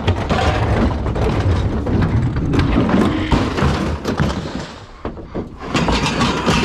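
Garbage truck's rear compactor running, its engine rumbling under load while the packer crunches and cracks the furniture and scrap in its hopper, with repeated knocks and creaks. The noise drops briefly about five seconds in, then picks up again.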